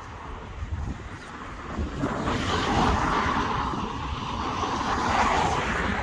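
A road vehicle passes close by with a rising rush of tyre and engine noise that swells about two seconds in and stays up until near the end, over a low rumble of wind on the microphone.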